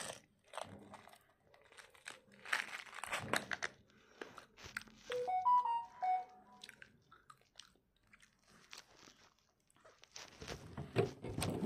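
Close-up crunching and chewing of a sweet in the mouth, with a short run of a few clear musical notes about five seconds in.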